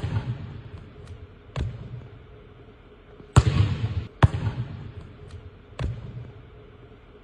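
A basketball bouncing on a hardwood court, echoing in a large empty arena. There are about five bounces at uneven intervals, and the loudest two come near the middle.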